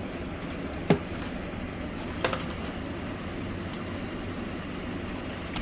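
Plastic dash air-vent parts clicking twice as they are handled, about a second in and again just over a second later, over a steady background hum.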